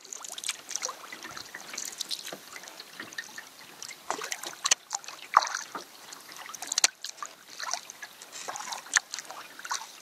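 Canoe paddling on calm water: the paddle blade dipping and pulling, with dripping and trickling water and a few sharp knocks.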